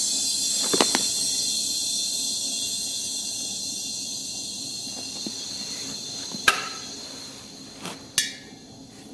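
Compressed air hissing, starting strong and fading steadily over about eight seconds, with a few sharp metallic clicks; the loudest click comes about six and a half seconds in.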